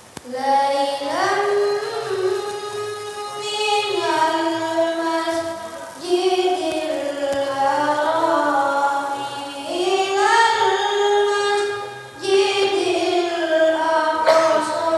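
A boy reciting the Quran in the melodic tilawah style, his high child's voice holding long ornamented notes that slide between pitches. It comes in long phrases with short breaks about six and twelve seconds in.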